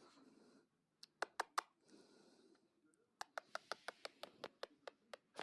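Runs of sharp, short clicks: four in quick succession about a second in, then a faster run of about a dozen, roughly five a second, from about three seconds in, with soft rustling between.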